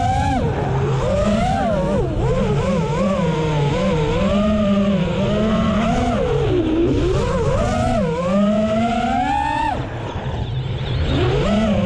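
Brushless motors of a 5-inch FPV racing quadcopter (AOKFLY RV2205 2500KV motors with Gemfan 5043 three-blade props) whining, the pitch sweeping up and down without pause as the throttle is worked through turns. About two seconds before the end the whine drops away for about a second, then climbs back up.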